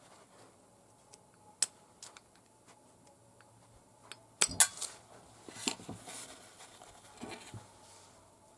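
Small metal parts and hand tools clinking and clicking as they are handled and set down on a workbench: a few single clicks, then a busier run of clinks and rattles about four to seven and a half seconds in.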